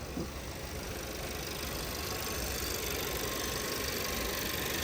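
Volkswagen Passat 1.8-litre four-cylinder engine idling steadily with no misfire, running smoothly after its camshaft adjustment sensor was replaced.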